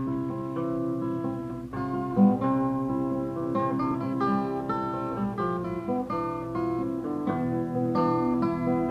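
Acoustic guitar playing the instrumental introduction of a song, a run of picked and strummed notes ringing, on an early-1970s quarter-inch reel-to-reel tape recording.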